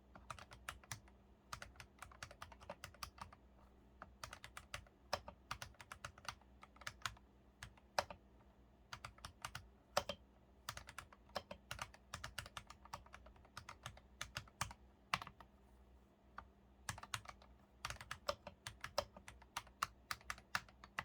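Typing on a foamed KBM68 mechanical keyboard with Akko Starfish jelly linear switches (50 g): quick runs of keystroke clacks, pausing briefly twice.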